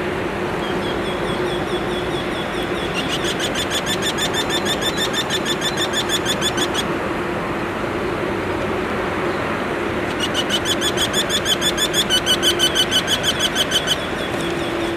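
Eurasian wryneck singing: two runs of evenly repeated high notes, about four a second, the second run louder, over a steady low hum.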